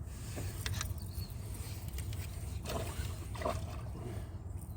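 Steady low rumble with a few faint, brief splashes of water around a small fishing boat.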